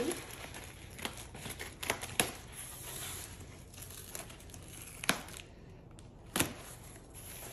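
Plastic packaging crinkling and rustling as a package is handled and opened, with several sharp crackles.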